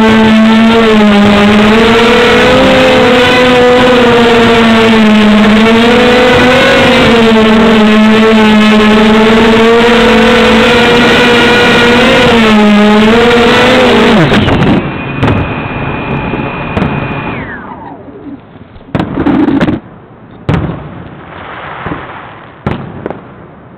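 A 250mm quadcopter's motors and propellers whining loudly from on board, the pitch wavering slightly as the throttle shifts. About 14 seconds in the whine drops steeply as the motors spin down on landing. A short high tone then falls away, followed by a few scattered knocks.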